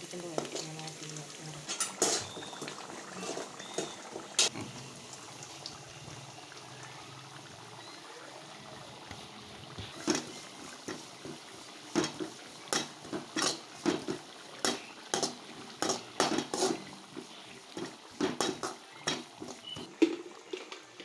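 Steel spoon stirring and scraping grated coconut and tempering in a metal wok, over oil sizzling. From about halfway through, the spoon clanks repeatedly against the pan, roughly twice a second.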